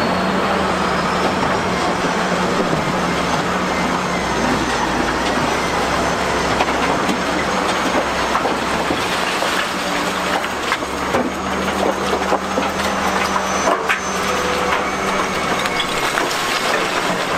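Broyt D1000T hydraulic excavator's engine running steadily under load, with rock scraping and clattering against the bucket as it digs through blasted stone. Near the end, rocks knock and rattle as they tumble from the bucket into the steel body of a dump truck.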